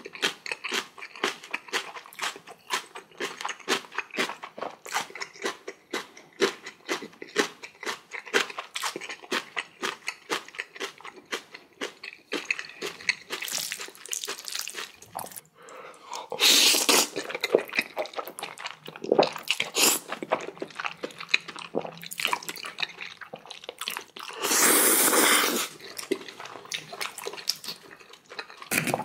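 Close-miked eating of jajangmyeon with spicy kimchi: rapid wet chewing and crunching of kimchi, then several loud slurps of noodles in the second half, the longest lasting about a second near the end.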